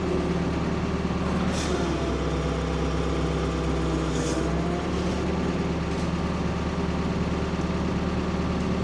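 Ford P-42 excavator engine running steadily under work, with two short hisses about one and a half and four seconds in.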